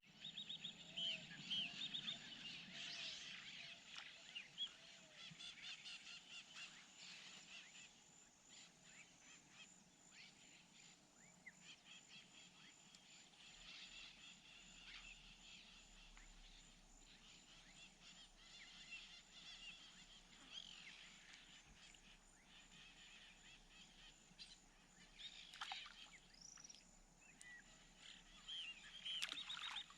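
Faint wild birds calling: scattered short chirps and quick falling whistles, busiest in the first few seconds and again near the end, over a thin steady high-pitched tone.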